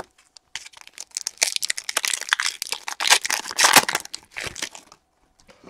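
The foil wrapper of a 2015 Panini Prestige Football retail pack crinkling and tearing as it is ripped open by hand. The sound starts about half a second in, is loudest past the middle, and stops shortly before the end.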